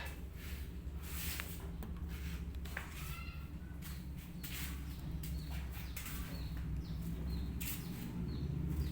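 A short bird or animal call about three seconds in, over a steady low hum, with scattered knocks and clicks.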